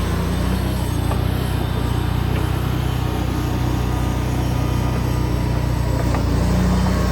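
BTTL ST28H mini skid steer's small engine running steadily at an even speed.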